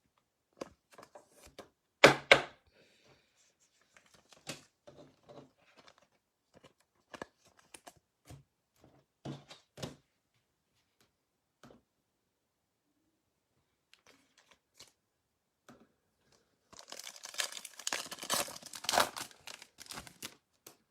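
A foil trading-card pack wrapper being torn open and crinkled, the tearing and rustling densest near the end. Scattered ticks and taps of cards and wrapper being handled come before it, with two loud sharp snaps about two seconds in.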